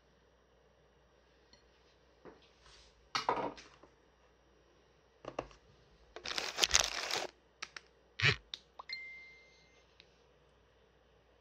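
Kitchen food-preparation handling sounds: a few bursts of rustling, the longest and loudest about six to seven seconds in, among several sharp clicks and knocks and a brief ringing tone near the end.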